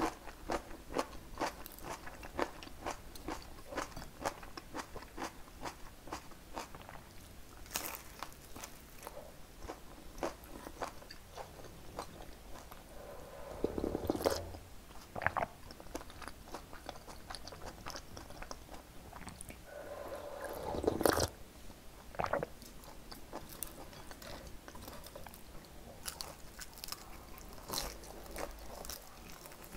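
Close-miked eating of fresh napa cabbage kimchi (geotjeori), with many small wet crunches as it is chewed. Twice, about halfway through and again a few seconds later, there is louder slurping as soup is drunk from a small bowl.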